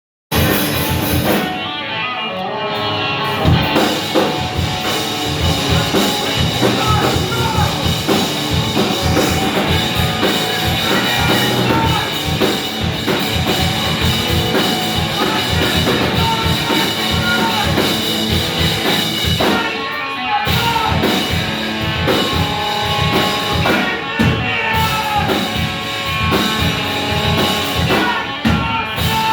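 A rock band playing live, loud and dense, with a drum kit and electric guitars.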